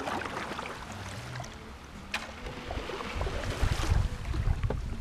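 A kayak hull breaking through thin lake ice: scattered sharp cracks and the tinkle of ice shards, rising to a louder, denser crunching with a low rumble under it shortly before the end.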